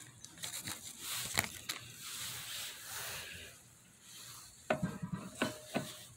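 Rustling and scraping of parts being handled for the first few seconds, then several sharp metallic clinks near the end.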